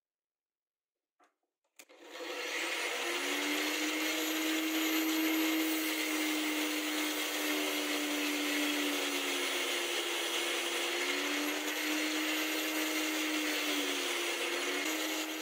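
Bench grinder fitted with a sanding disc running while a steel twist drill is ground against the abrasive to a four-facet point: a steady motor hum under a dense grinding hiss. It starts about two seconds in and cuts off abruptly at the end.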